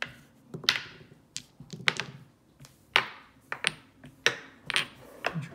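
Precision dice rolled onto a felt-covered MDF backgammon board, tumbling and knocking against the board and each other in a series of sharp clicks and taps.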